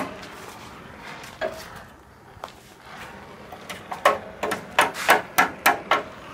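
Hammer striking the rusted steel tube frame of a 1960 Lambretta Li150 Series 2 scooter: a single blow about a second and a half in, then a quick run of about nine blows, roughly four a second, in the second half.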